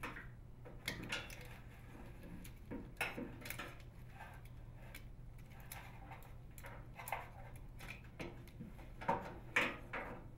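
Small plastic clicks, snaps and rattles as microwave door switches are unclipped from the plastic door latch bracket, with the loudest snaps near the end, over a faint steady hum.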